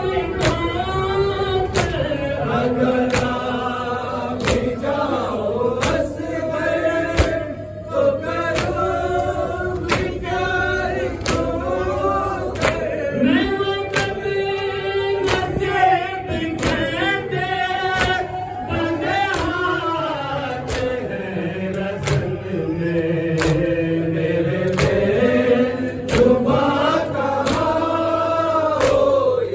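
A noha sung by a group of men in chorus behind a lead voice on a microphone, with a steady beat of sharp slaps from matam, hands striking chests.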